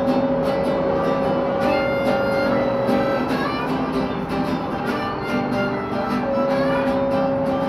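Music: long held notes, one high note sustained for about three seconds, then returning after a pause, over lower sustained notes and a steady pulse of short notes.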